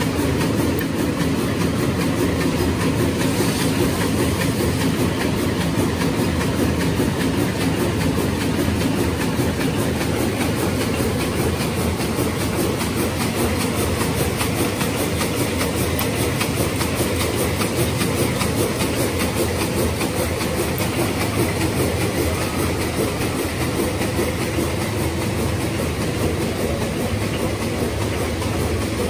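DAKIOU double-head paper hamburger-box forming machine running at production speed, set to 150 boxes a minute: a steady, rapid mechanical clatter.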